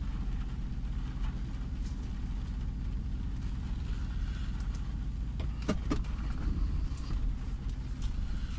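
Steady low rumble of a car's engine and road noise, heard from inside the cabin as the car drives slowly. Two sharp clicks a little past halfway.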